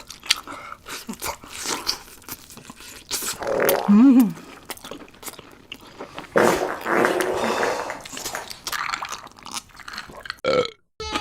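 Close-miked crunching and chewing of fried food. About four seconds in there is a short, loud sound that rises and falls in pitch. A loud, noisy stretch of chewing follows around six to seven seconds.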